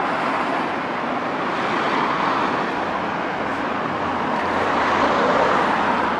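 Steady rushing background noise with no engine note, a little louder about five seconds in.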